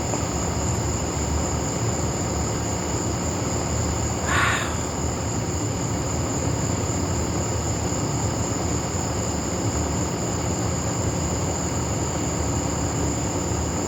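Summer night ambience: a steady, high-pitched insect chorus over a constant low rumble, with one brief sound about four seconds in.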